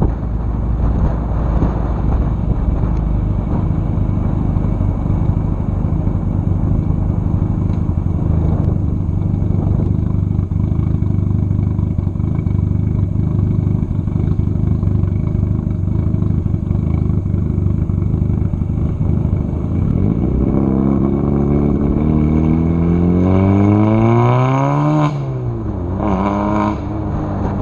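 The turbocharged 1.8T four-cylinder engine of a VW Jetta runs under a steady low rumble, then revs up hard about twenty seconds in, its pitch climbing steadily. The pitch falls suddenly, as at a gear change, and climbs again near the end.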